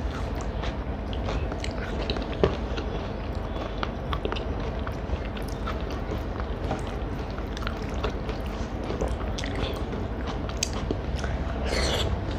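A person chewing and biting food close to the microphone, with many small wet mouth clicks over a steady low hum. There is a sharp click about two and a half seconds in and a short, louder noisy crunch near the end.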